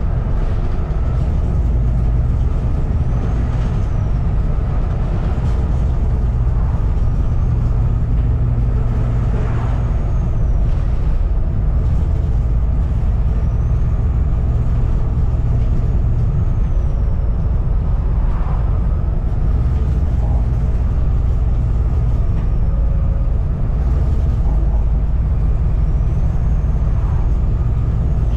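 Volvo B7TL double-decker bus's six-cylinder diesel engine running steadily under way, with a faint high turbo whistle rising and falling several times, and the bus body rattling.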